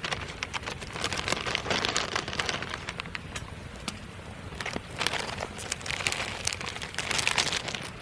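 Wood fire of water-soaked firewood crackling and popping in dense runs of sharp snaps, heaviest in the first three seconds and again from about five seconds in.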